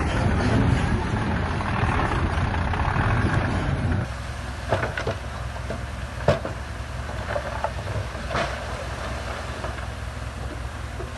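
Heavy diesel construction machinery running steadily. About four seconds in, the sound cuts to a quieter engine drone with several sharp knocks, the loudest about six seconds in.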